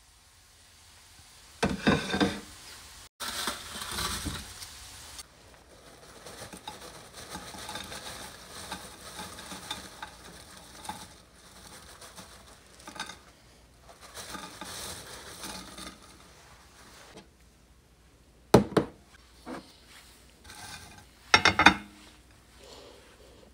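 Dishes and food being handled on a table: fries and chicken tenders shuffled around a plate, with rustling and light clattering, and a few sharp knocks of dishes set down, the loudest about three quarters of the way in and near the end.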